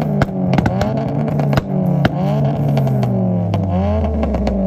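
Modified Honda Civic with an aftermarket dual-tip exhaust being revved in repeated quick blips, the pitch rising and falling each time, with sharp pops between the blips. It settles back to a steady idle near the end.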